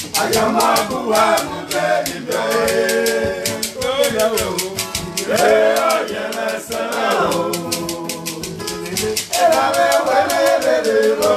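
A man singing loudly with sliding pitch, to his own strummed acoustic guitar, the strums quick and even at about five a second.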